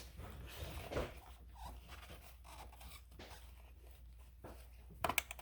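Hands working a catch-can hose and its plastic quick-connect fitting onto the engine: faint scrapes and rustles, then a quick cluster of sharp clicks near the end.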